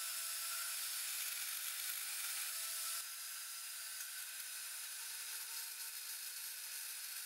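Portable band saw running and cutting steel bicycle gooseneck tubing, a steady, fairly quiet and thin-sounding saw noise with no low end.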